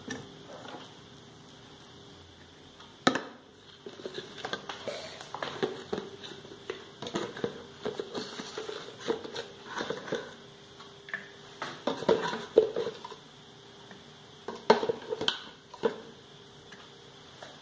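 A spoon scraping and tapping against plastic spice jars and an earthenware clay pot as spice powders are scooped out and added. It makes an irregular string of small clicks and knocks, with a sharp knock about three seconds in and a cluster of louder taps near the end, over a faint steady hum.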